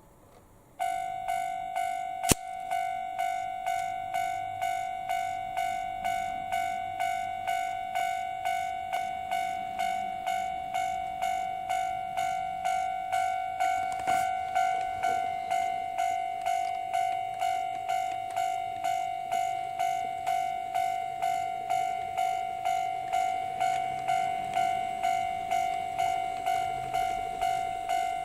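Electronic warning bell of a KATO model automatic level crossing ringing at a steady pace of about two strikes a second, starting about a second in, with one sharp click a little over two seconds in.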